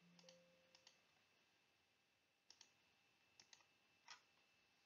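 Near silence broken by faint computer clicks, mostly in quick pairs, about five times, while trying to advance a presentation slide that does not move.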